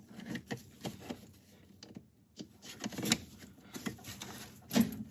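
Plastic steering column cover being slid and worked into place on the column by hand: light rubbing and scraping of plastic, with a few small knocks and clicks.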